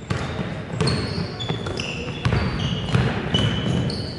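Basketball players' shoes squeaking on a gym floor during play: a quick string of short, high squeaks at changing pitches, over the thuds of the ball bouncing and of footfalls.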